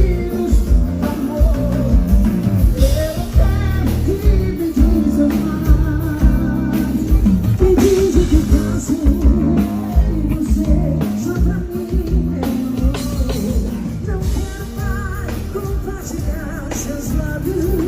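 Forró band music with a singer over a steady drum beat and guitar.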